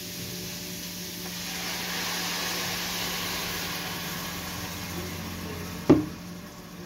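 Pork picanha sizzling in a pan with Inca Kola: a steady hiss that swells and then eases off, over a faint low hum. A single sharp click comes near the end.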